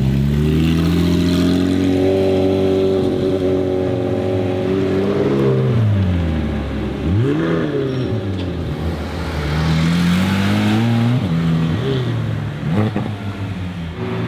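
McLaren 765LT's twin-turbo V8 revving. Its pitch climbs steadily for about five seconds and then drops, followed by quick throttle blips and another climb. A few sharp exhaust cracks come near the end.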